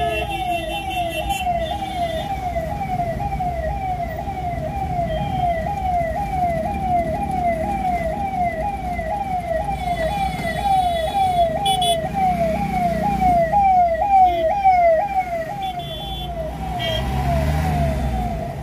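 Electronic siren wailing in a fast, repeating sweep of pitch, about two cycles a second at an even level, over the low rumble of traffic.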